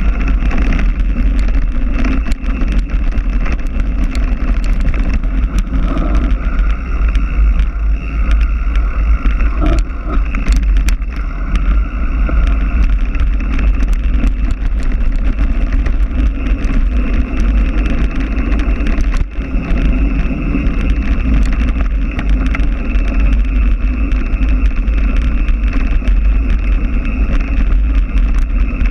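Wind buffeting the microphone over the rattle of a mountain bike riding a trail, with many small clicks and knocks from the bike and the terrain.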